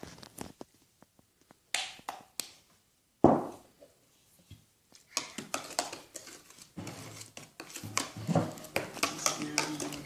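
A spoon clinking against a cup or bowl while borax is stirred into water to dissolve it: a few scattered clinks, one loud knock about three seconds in, then fast, busy clinking through the second half.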